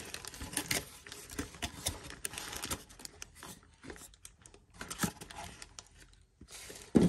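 White paperboard box insert and tissue paper being handled and pulled apart: scattered light taps, scrapes and crinkles that thin out past the middle, with a sharper knock near the end.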